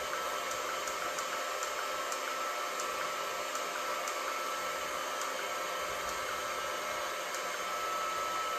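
Electric heat gun running steadily on its low fan setting, a steady rush of hot air with a thin whine over it.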